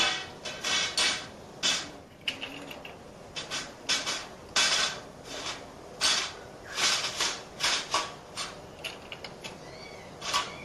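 Small bánh bèo bowls clinking and knocking as they are set one by one into the upper tier of a stainless-steel steamer pot, an irregular run of quick clinks.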